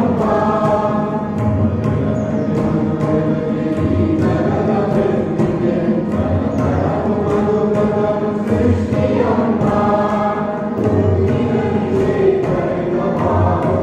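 Voices singing together in a chant-like melody, carried over a steady percussive beat.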